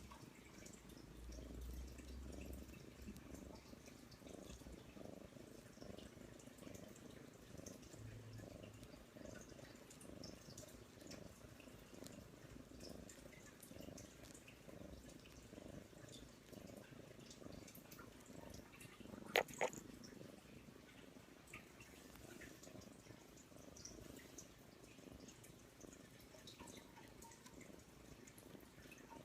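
Kitten purring steadily, a soft low rumble, while it kneads. A brief sharp double click about two-thirds of the way through is the loudest sound.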